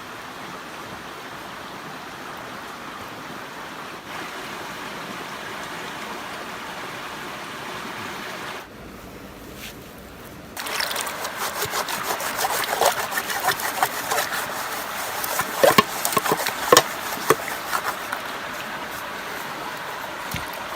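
A river or stream rushing steadily. About ten seconds in, after a brief drop, a louder run of irregular clicks and crackles comes over the water sound, sharpest a few seconds before the end.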